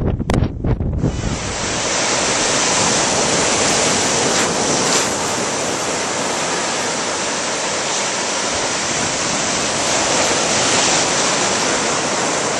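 Wind buffeting the microphone for about a second, then the steady wash of surf breaking in the shallows.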